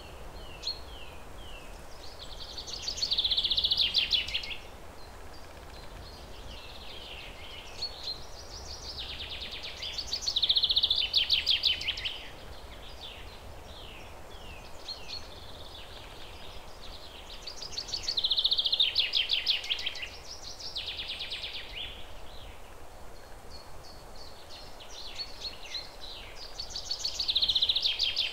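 Birdsong: rapid trilled phrases that come back about every eight seconds, with short chirps between them, over a faint steady hiss.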